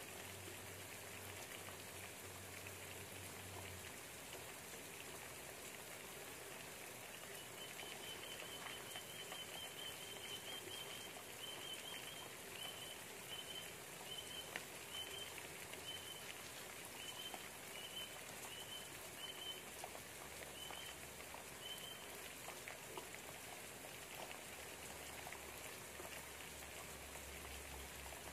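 Steady, soft rain pattering outside a window. From about eight seconds in to about twenty-two, a small high chirp repeats about once or twice a second.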